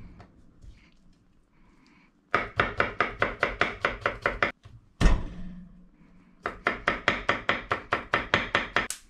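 Knife chopping garlic on a wooden cutting board in quick, even strokes, about five a second. There are two runs of a couple of seconds each, the first starting a couple of seconds in, with a short pause between them.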